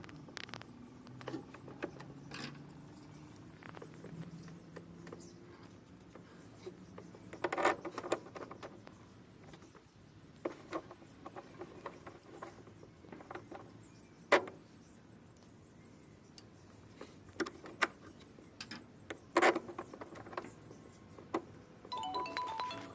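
Scattered metallic clicks, clinks and knocks of tools and parts being handled while a top-loading washing machine gearbox is taken apart, with a few louder knocks. Music comes in near the end.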